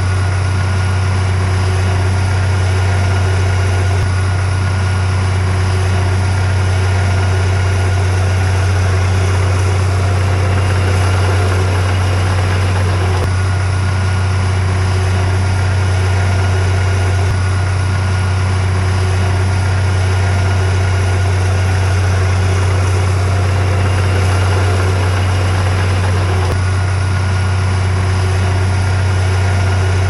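Heavy diesel engine of earthmoving machinery running steadily at constant speed: an even, low drone with no revving or pauses.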